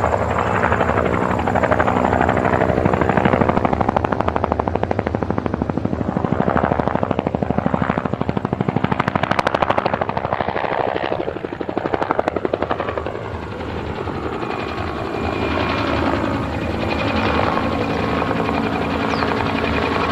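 Helicopter sound effect: rotor blades beating rapidly over a steady engine tone. The beating is strongest in the middle and eases into a smoother hum in the last third.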